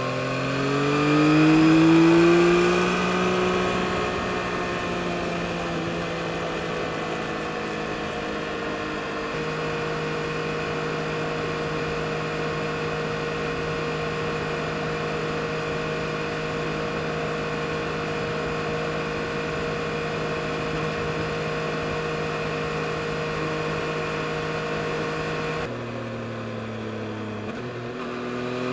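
2022 Yamaha MT-09 SP's three-cylinder engine pulling hard with the revs rising over the first few seconds, then holding a steady cruise. Near the end the revs drop and then start climbing again.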